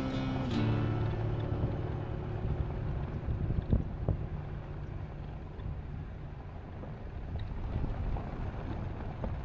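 Vehicle driving, heard as a low steady rumble, with a couple of sharp knocks about four seconds in. The tail of background music fades out in the first second.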